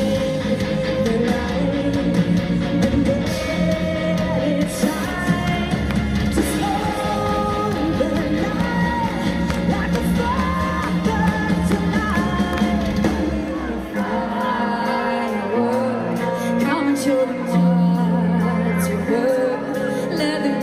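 Music: women singing over a full rock band. Around two-thirds of the way through, the heavy low end drops away and the voices carry on over a lighter backing.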